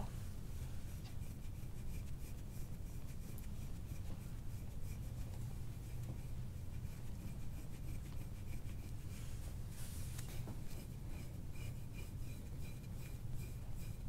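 Quick, repeated scratchy strokes of a small metal scraping tool rubbed over oiled skin on the back, over a steady low hum.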